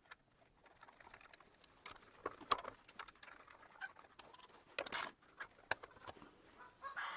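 Scattered light clicks and taps, the loudest about two and a half and five seconds in, with a chicken clucking briefly near the end.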